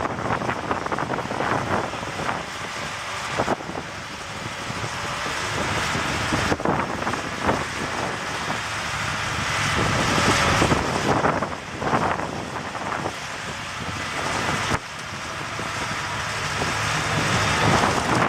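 Off-road vehicle engines running and revving, with wind buffeting the microphone. The sound changes abruptly a few times and is loudest a little past the middle.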